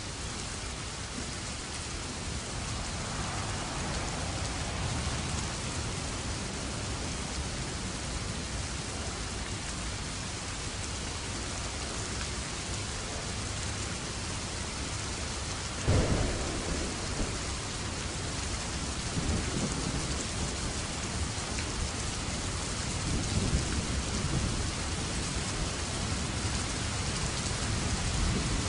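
Steady rain falling, with a sudden thunderclap about halfway through followed by low rolling thunder that swells again a few times.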